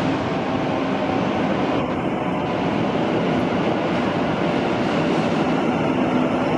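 Sydney Trains Waratah double-deck electric train arriving at an underground platform, with a steady, loud rumble of its wheels and motors.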